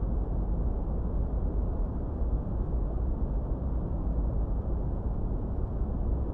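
Steady generated noise for masking: an even, deep hiss with no pitch, rhythm or change, its energy mostly in the low end and little above about 2 kHz, closer to brown noise than flat white noise.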